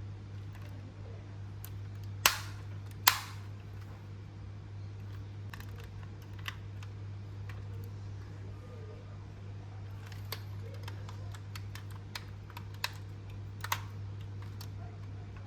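Sharp clicks and taps from a 1:24 scale diecast model pickup truck being handled: two loud clicks about two and three seconds in, then a scatter of lighter clicks. A steady low hum runs underneath.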